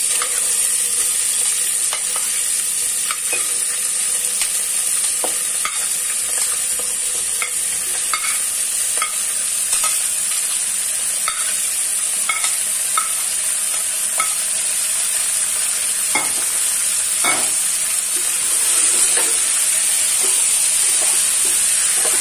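Chopped onions, tomatoes and vegetables sizzling in hot oil in an aluminium pressure cooker, a steady frying hiss, while a steel spatula stirs them, clicking and scraping against the pot.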